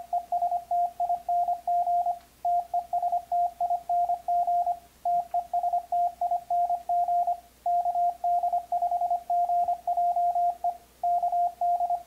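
Elecraft KX3 transceiver's CW sidetone: a single steady tone keyed on and off in Morse code dots and dashes, sending the keyboard-typed text "testing testing testing" and a call sign, with short pauses between words.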